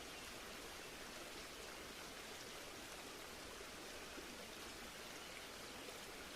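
Faint, steady rushing of water.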